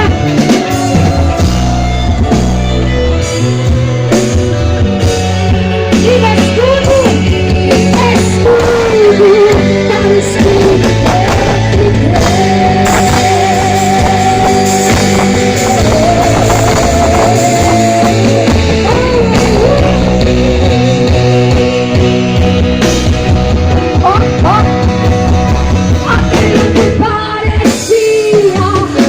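Live worship band playing loud amplified music in a rock style, with steady bass under a lead melody that bends in pitch and wavers on a held note mid-way; no lyrics are made out.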